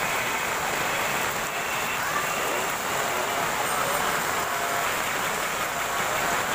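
Heavy rain falling on a street and pavement, a steady dense hiss that keeps an even level throughout.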